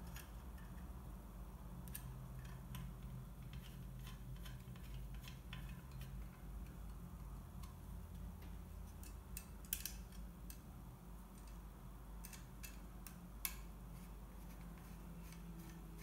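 Small screwdriver driving screws into a laptop drive's metal mounting bracket: scattered light metallic ticks and clicks, with two sharper clicks about ten and thirteen seconds in.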